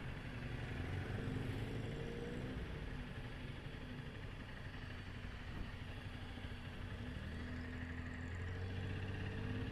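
Motor vehicle engines running at low speed in street traffic, with an engine's pitch rising slightly about a second in and again near the end.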